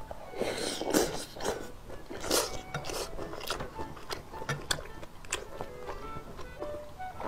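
Close-up eating sounds of a big mouthful of soft, saucy boiled pork and duck intestines in chili broth, chewed wetly with louder stretches about half a second and two seconds in. Through the rest, chopsticks click against a glass bowl while stirring rice.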